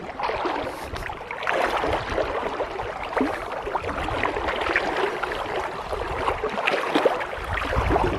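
Creek water splashing and gurgling, an irregular stream of small splashes.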